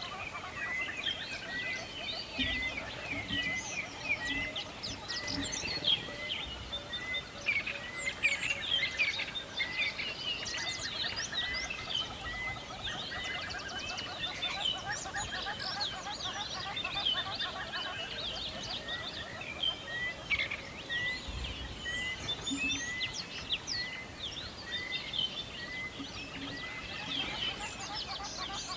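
A chorus of many songbirds chirping and singing at once, with one bird repeating the same short note a little under twice a second through much of it.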